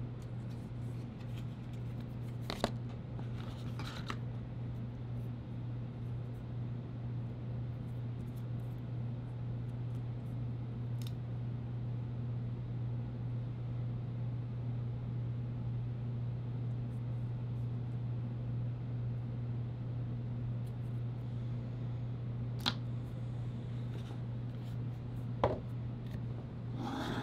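Steady low hum, with a few light clicks and a brief rustle from the phone's paper-card accessory packaging being handled and from items being set down on a table.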